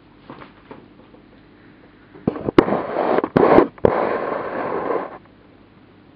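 Rustling and a few sharp plastic clicks as a small plastic container with a red lid, packed with paper tissue, is picked up and handled close to the microphone; the noise lasts about three seconds, starting about two seconds in.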